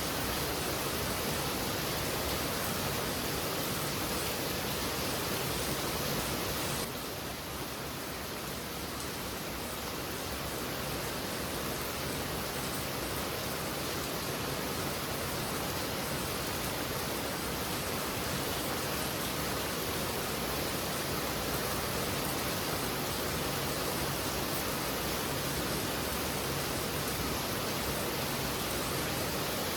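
Heavy rain falling in a steady, dense hiss. About seven seconds in it suddenly drops a little in loudness, then builds back up over a few seconds.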